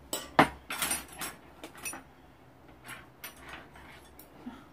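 Tableware clinking and knocking as rice is scooped with a spoon from a rice cooker's inner pot: one sharp click a little under half a second in, then a string of lighter clinks.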